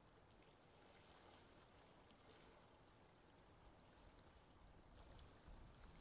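Very faint lake ambience: gentle water lapping with small scattered splashes over a low wind rumble, growing slightly louder near the end.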